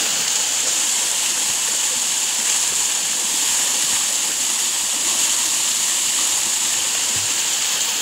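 Steady rush of a waterfall pouring into a rock pool, with the splashing of a person swimming through the water.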